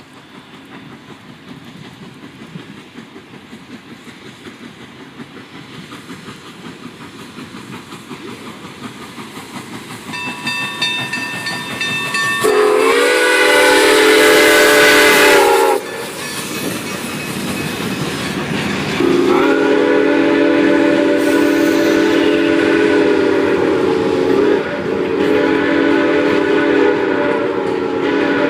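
Steam locomotive drawing near, its running noise growing louder. Its whistle then sounds a chord of several tones: a loud blast of about three seconds together with a burst of hissing steam, and later a long blast broken briefly near the end.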